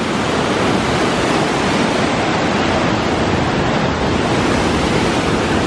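A waterfall's whitewater cascading over boulders, heard up close as a loud, steady rush of falling water.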